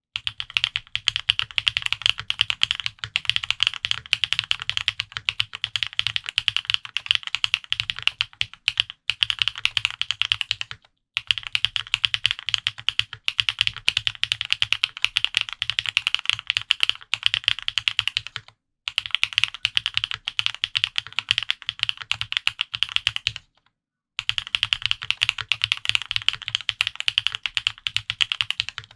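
Fast, continuous typing on a Mode65 custom mechanical keyboard with lubed Gateron Pure Sky switches on a POM plate and GMK keycaps, many keystrokes a second, with three brief pauses.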